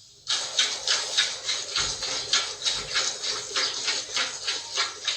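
Hand-milking a water buffalo: milk jets squirting into a pail in a quick regular rhythm of about three to four hissing squirts a second, starting about a third of a second in.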